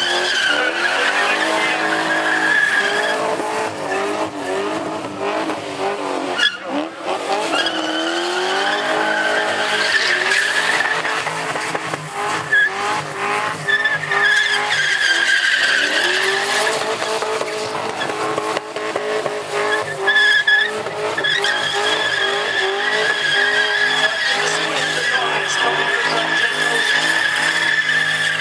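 Car doing a sustained burnout: the engine is held high in the revs, rising and falling, while the spinning rear tyres squeal steadily. The revs dip briefly about six seconds in, then climb again.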